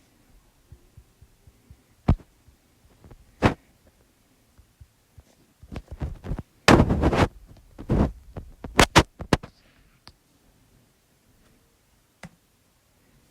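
Irregular thumps and knocks: two single ones, then a dense loud cluster in the middle and a few quick clicks after it.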